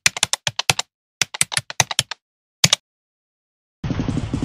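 Computer keyboard typing sound effect: two quick runs of key clicks, then a single double click. After a short silence a low rumble with rapid pulses starts near the end.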